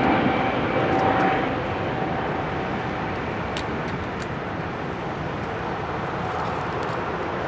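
Passenger jet's engine noise, a steady rush with a faint whine, dropping over the first couple of seconds and then holding steady as the aircraft moves away.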